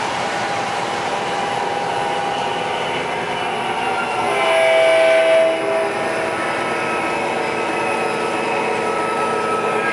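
Digital sound system of an MTH O-gauge model diesel locomotive: a steady diesel engine sound with one horn blast of about a second and a half, about four seconds in, the loudest part.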